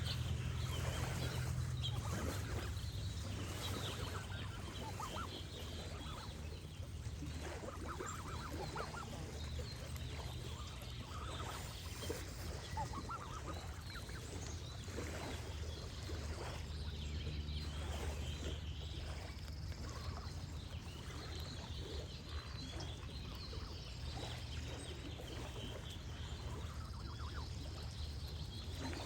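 Geese honking again and again, with small birds chirping high above them and a steady wash of gently flowing water underneath.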